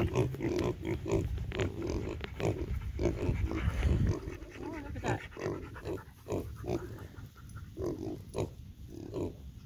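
Kune Kune piglets grunting contentedly while being petted, a steady run of short grunts about two a second.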